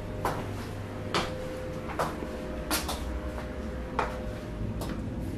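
Light knocks and clicks, six of them at irregular spacing about a second apart, over a steady hum.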